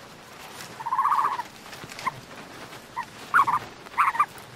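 Animal calls: one quavering, pitched call about a second in, then a string of short, sharp calls near the end.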